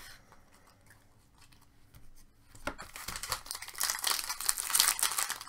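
Foil trading-card pack wrapper being torn open and crinkled in the hands. The crinkling starts about two and a half seconds in, after a quieter stretch of a few faint ticks, and grows loud.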